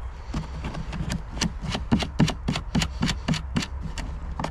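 Plastic tail-light access cover in a car's boot trim being worked off by hand: a quick run of light clicks, about three a second, with rubbing and handling.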